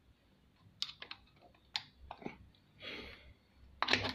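Scattered sharp clicks and light metal taps of a screwdriver and hands working at the motor mount of a Toyota 6602 sewing machine, where the belt tension is set. A louder cluster of clicks comes near the end.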